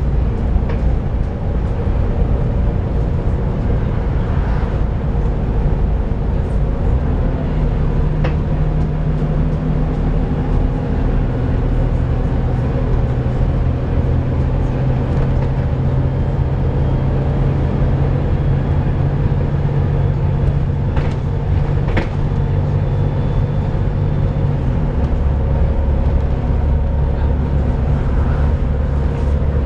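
Volvo B7TL double-decker bus engine running under way. Its low note shifts about a quarter of the way in and again near the end as engine speed changes, with a few sharp knocks or rattles in between.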